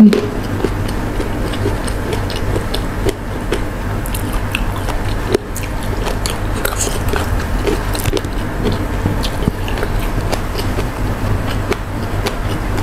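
Close-miked eating sounds: a person chewing and biting food with many small wet clicks and crackles, over a low steady hum.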